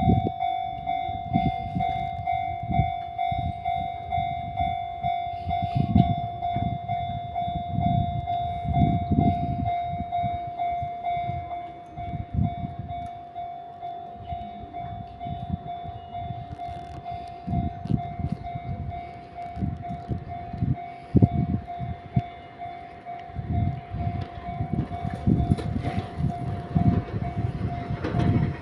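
Japanese railway level-crossing alarm ringing steadily on one repeating tone, with irregular low thumps underneath. Right at the end the noise of an approaching Enoden train starts to build.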